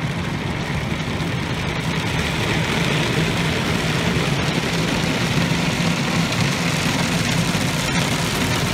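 Automatic car wash running around the car, heard from inside the cabin: a steady rush of water and machinery over a low hum, growing a little louder a few seconds in.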